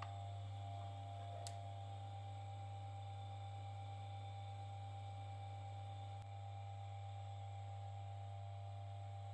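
Steady electrical hum of a Keithley 619 electrometer running with its case open, from its cooling fan and mains supply. There is a low hum with fainter, higher steady tones above it, and one faint click about a second and a half in.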